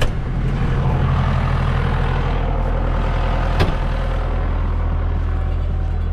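John Deere 6110 tractor's diesel engine running steadily, with a single sharp knock about three and a half seconds in.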